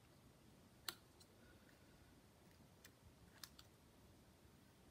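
Near silence with a few faint, sharp clicks, the clearest about a second in: small parts being handled and fitted inside an opened laptop, such as the Wi-Fi card's cable connectors being seated.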